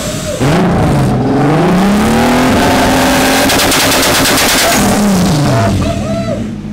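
Turbocharged 3.2-litre VR6 engine revving up about half a second in and held at launch control, with a rapid, even crackle of bangs from the exhaust while it sits at the limit. About five seconds in the revs drop back to a steady idle.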